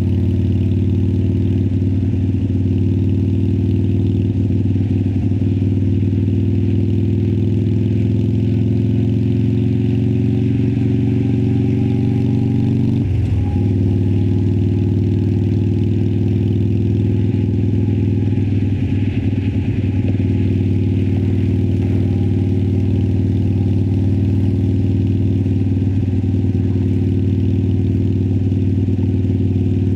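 2018 Harley-Davidson Sportster Iron 1200's air-cooled V-twin running under way through Vance & Hines Twin Slash slip-on exhausts. The pitch climbs slowly, then drops abruptly about 13 seconds in and settles steady again.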